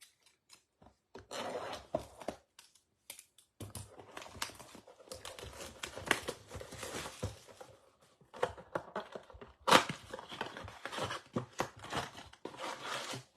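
Plastic wrapping on a box of trading cards being torn and crinkled, in several long rustling stretches broken by short pauses, with small sharp clicks of the cardboard being handled.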